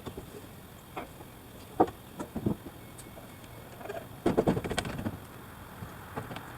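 Scattered knocks and clunks of wooden framing lumber being handled and set in place, with a quick run of several knocks a little past the middle.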